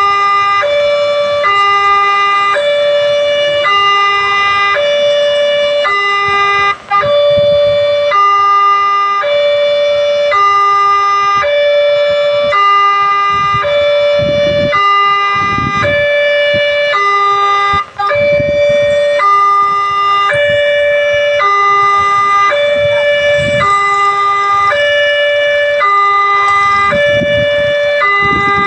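Railway level-crossing warning alarm sounding: a loud electronic two-tone signal alternating high and low in a steady repeating pattern, cutting out briefly twice.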